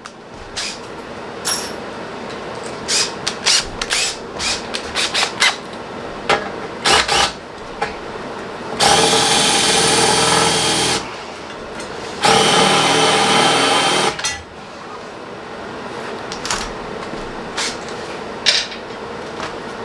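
Power drill running in two bursts of about two seconds each, a high motor whine while drilling mounting holes in metal for the intercooler. Scattered clicks and knocks of the drill and parts being handled come before and after.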